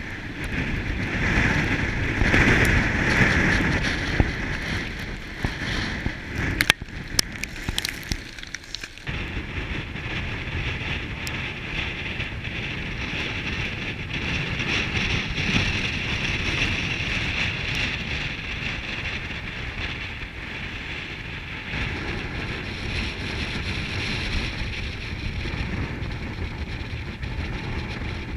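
Strong gusting wind rushing through frost-covered bare treetops, with wind buffeting the microphone in a low rumble; the gusts peak a few seconds in. A handful of sharp clicks and cracks come about six to eight seconds in.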